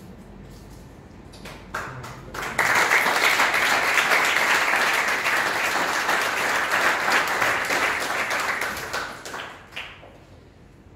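Audience applauding: a few scattered claps about one and a half seconds in, swelling into full, loud applause for about six seconds, then dying away.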